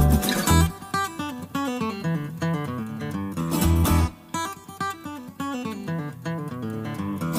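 Background music with quick plucked notes running up and down over a bass line.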